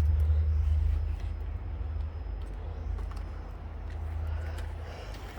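Engine running with a steady low hum that eases down about a second in, with a few faint clicks over it.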